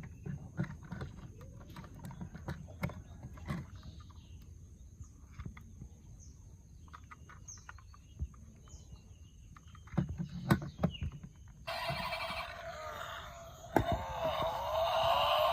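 Scattered clicks and knocks, as of plastic toy vehicles being handled, with a few faint bird chirps. About three-quarters of the way through, a loud electronic toy sound with a tune starts.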